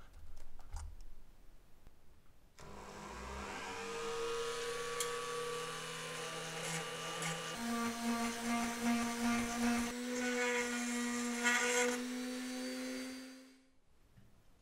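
Handheld rotary tool (Dremel) running with a small bit pressed against a rivet head on a pressed-steel toy body, grinding it out for disassembly; the motor hum steps up in pitch about halfway through and the grinding comes and goes unevenly before the tool switches off about a second before the end. A few light clicks of metal bits being handled in a plastic case come at the start.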